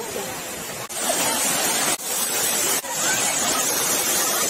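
Steady rush of a waterfall, a dense noise of falling and churning water, broken by brief drop-outs at cuts about every second.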